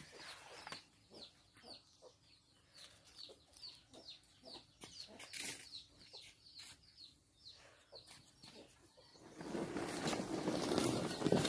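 Chickens clucking with short repeated calls, then near the end a louder rough scraping as a heavy potted plant is shifted across the dirt ground.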